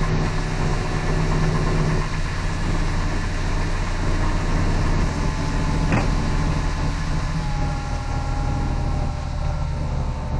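Heavy diesel farm machinery engine running steadily under load, with a single sharp click about six seconds in.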